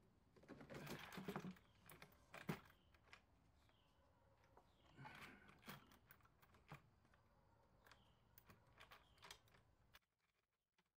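Faint handling sounds of the upper intake manifold being set in place by hand on a Ford Taurus DOHC engine: scattered light clicks, taps and rustles, with one sharper knock about two and a half seconds in. The sound stops short about ten seconds in.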